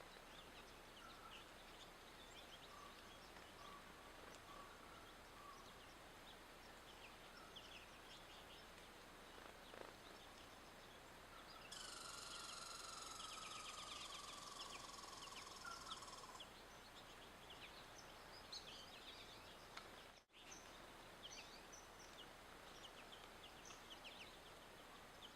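Faint, scattered chirps and twitters of small songbirds coming to seed on the snow, over a quiet outdoor background. About halfway through there is a slightly louder spell of denser high chattering, with a faint falling tone under it.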